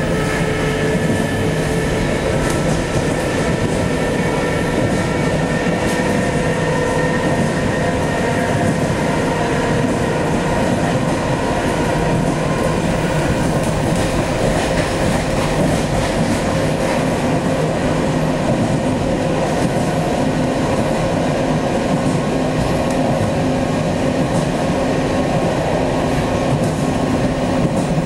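ЭП2Д electric multiple unit heard from inside the carriage while running at speed: a steady rumble of wheels on rail, over which several thin whining tones drift slowly in pitch, with an occasional click.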